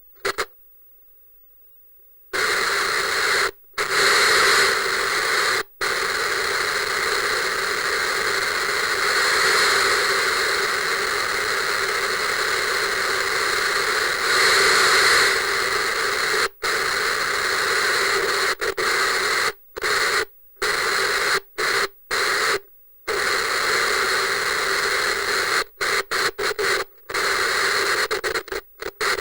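Analog TV static hiss, a harsh band-limited noise that cuts out abruptly to silence again and again, with a longer dropout near the start and clusters of short cut-outs in the second half.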